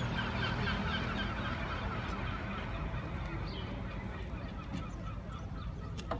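A flock of birds calling, many short calls overlapping, loudest in the first couple of seconds and thinning out, over a steady low rumble.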